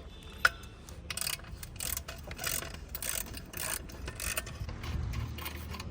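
Hand tools working loose the mounting bolts of a motorcycle's stock exhaust: a sharp metallic click, then a run of quick clicks and scrapes of metal on metal.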